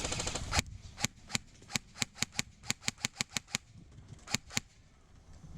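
Airsoft gun firing about fourteen single shots, sharp snaps coming a few per second at uneven intervals, with a pause before the last two. A short hiss comes at the very start.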